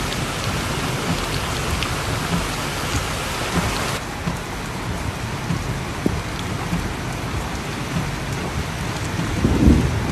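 Heavy rain falling steadily and pattering on surfaces, with a low rumble swelling briefly near the end.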